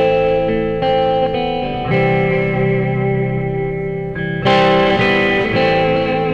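Instrumental guitar music: held chords from a C–Am–F–G progression, a new chord struck about every one to two and a half seconds.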